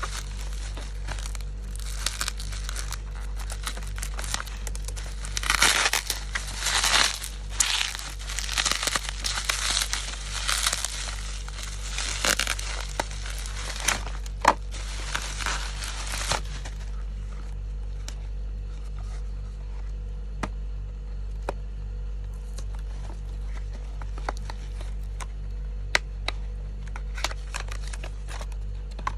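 Packaging being unwrapped by hand: crinkling, rustling and tearing for roughly the first half, then only scattered light clicks and taps, over a steady low hum.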